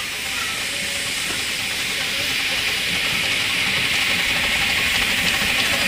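7.25-inch gauge miniature steam locomotive hauling loaded passenger cars, coming nearer: a steady hiss of steam that grows louder, over a low rumble of the train on the track.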